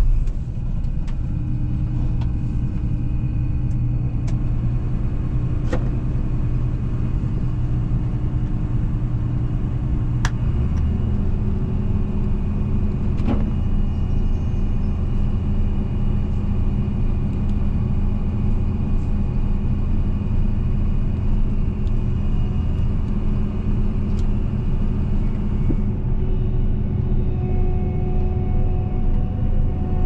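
John Deere 9500 combine running while harvesting soybeans, heard from inside the cab: a steady low drone of engine and threshing machinery. Its tone changes about ten seconds in, and a few light clicks come through.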